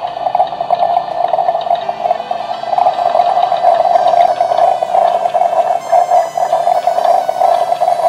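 Just Like Home toy coffee maker playing its electronic brewing sound: a steady gurgling, bubbling water sound.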